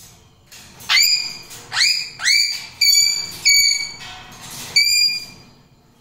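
A pet parrot giving six loud whistled calls, each sweeping quickly upward and then holding a clear note, in an uneven run over about four seconds.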